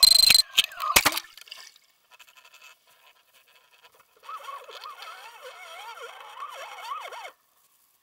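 Underwater action camera splashing at the lake surface and plunging under, then muffled underwater quiet. From about four seconds in, a wavering, whining pitched sound rises and falls for about three seconds and cuts off suddenly.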